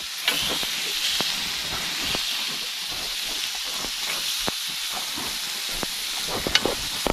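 Raw lamb chops sizzling on the hot grill plate of a portable gas cooker: a steady hiss with many small crackles as the meat is laid on.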